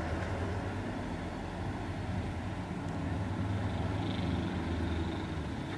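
Steady low drone of a diesel locomotive's engine running out of sight.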